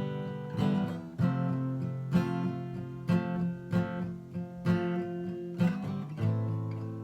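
Music: an acoustic guitar strumming chords, with a sharp attack on each strum.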